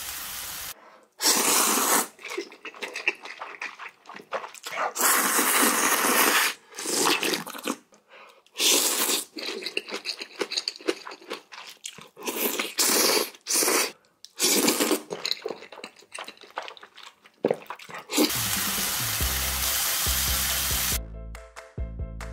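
Noodle slurping in short noisy bursts, many in a row with brief gaps between them. Music comes in near the end.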